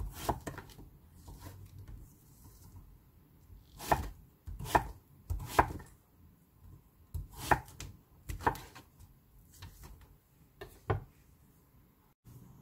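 Chef's knife slicing Korean zucchini on a wooden cutting board: the blade knocks on the board in uneven single strokes with short pauses between them.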